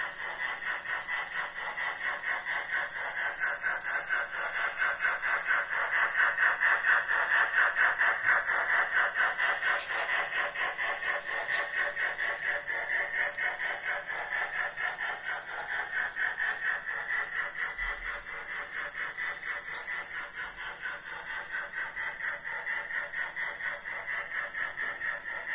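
H0-scale model freight train rolling along the track, a steady rhythmic clatter of wheels running over the track.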